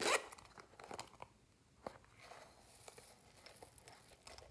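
Zipper on a soft plastic ice-cream-cone pouch being pulled open with a short rising rasp, loudest right at the start. Scattered clicks and light crinkling follow as the pouch is handled.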